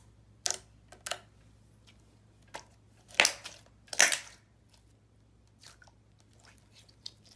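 Clear slime with butterfly glitter being pressed and poked by hand, giving a string of sharp pops and wet squishes from bubbles in the slime; the loudest come about three and four seconds in.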